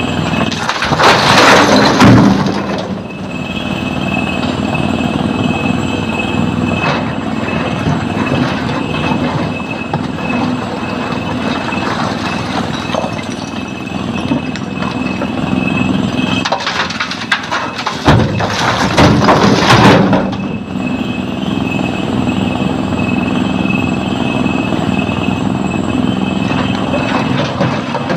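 SANY hydraulic excavator's diesel engine running steadily under load, with a steady high whine, while it loads broken rock into a steel dump-truck body. Twice, about a second in and again near eighteen seconds in, a bucketful of stone crashes and rattles into the truck bed, the loudest sounds.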